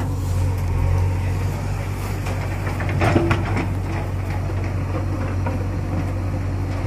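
JCB 3DX backhoe loader's diesel engine running steadily as the backhoe digs, with a short cluster of knocks and scrapes about three seconds in as the bucket works through soil and stones.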